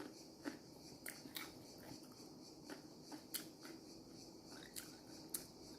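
Faint chewing and small mouth clicks of someone eating close to the microphone, scattered irregular ticks over a quiet room background.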